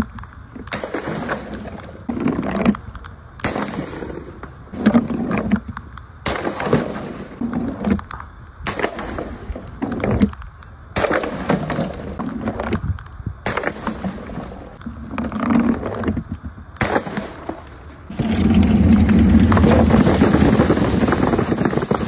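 A string of short clips of liquid-filled plastic bottles bursting on a hard floor: sharp pops and wet splats, cut together every couple of seconds. From about 18 s, soda bottles burst on a bed of nails, making a loud, steady rush of fizzing spray.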